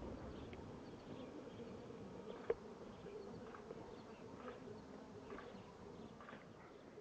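Bees buzzing, a faint steady hum, with one sharp click about two and a half seconds in.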